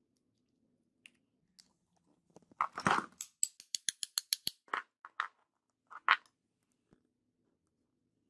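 Metal parts of an angle grinder's gear housing being fitted together by hand: a short scrape about two and a half seconds in, then a quick even run of light metallic clicks, about eight a second, followed by three separate sharper knocks.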